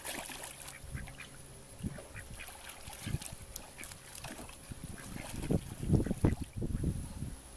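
A white domestic duck quacking while it and a dog move about in shallow pond water, with splashing and sloshing that grows louder in the second half.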